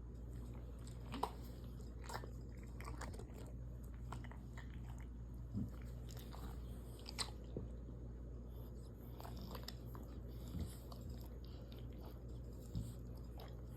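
Shar Pei dog making irregular, faint clicking mouth sounds, scattered over a steady low hum.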